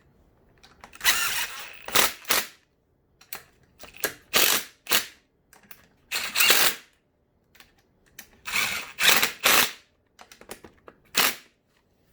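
Motorcycle top clamp bolts being run down with a hand tool or power driver: about eight short, sharp bursts of clicking, each under a second, with pauses between them.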